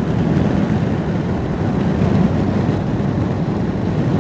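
Steady rushing and rumbling road and wind noise of a moving car.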